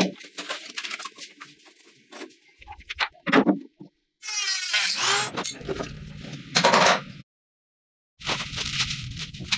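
Short, abruptly cut snatches of workshop sound from stripping down an old scooter: metal parts knocking, rattling and scraping, with a brief rapid rattle about four seconds in and a cut to dead silence near the end.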